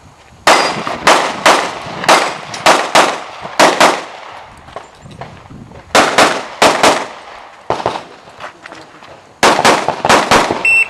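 Pistol shots fired in quick strings during an IPSC handgun course of fire: a rapid run of about ten shots, a pause, a few more, then another fast string. Near the end comes a short high electronic beep.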